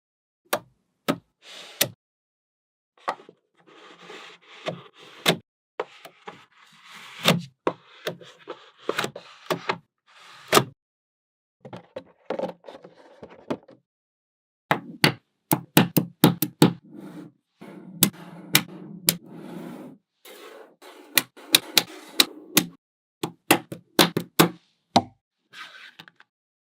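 Small magnetic balls clicking and snapping together as they are placed, one by one and in quick runs, with stretches of denser rattling and clattering.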